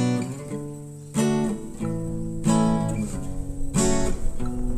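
Background music: strummed acoustic guitar chords, a new strum about every second and a quarter.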